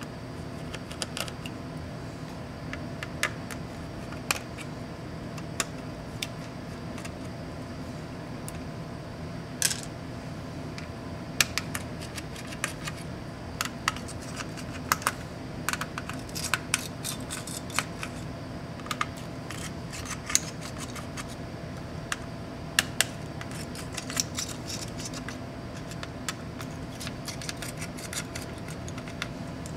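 Small sharp clicks and taps of hands and tools working the MSI GE76 Raider laptop's copper heat-pipe and twin-fan cooling assembly loose from the board, sparse at first and coming thick and fast from about a third of the way in, over a steady low hum.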